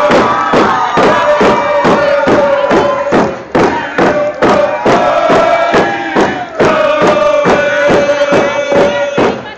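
A group of Nuu-chah-nulth singers chanting a song in unison over a fast, even drumbeat.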